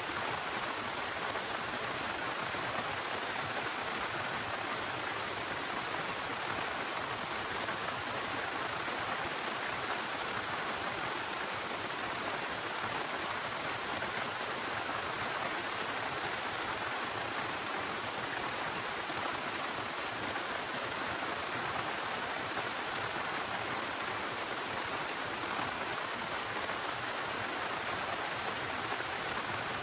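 Steady heavy rain falling, a dense, even hiss with no single drops standing out.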